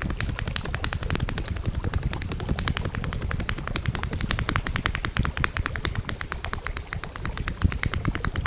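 Rapid, even percussive strokes, about ten a second, over a low steady hum: hands tapping or slapping a body in a percussive massage.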